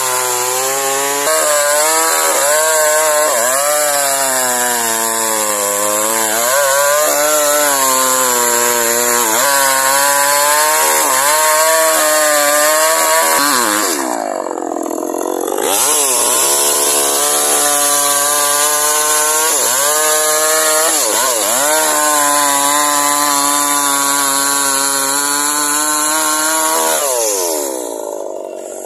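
Two-stroke chainsaw cutting through a coconut palm trunk, its engine speed rising and sagging as the chain bites into the wood. The engine dips sharply once about halfway through, then runs at high speed again and drops back toward idle about a second before the end as the throttle is let off.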